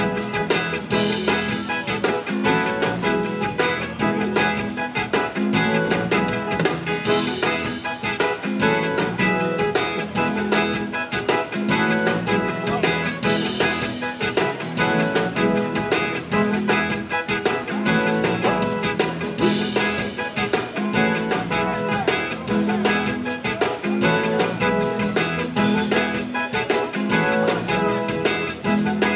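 Zydeco band playing live through a stage PA, heard from the crowd: accordion, electric guitars, keyboard and drum kit in a steady, driving dance beat.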